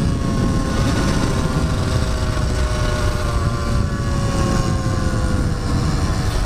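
Dirt bike engine running at a steady cruise, its pitch sinking slowly as the revs ease off, over heavy wind rumble on the rider's camera.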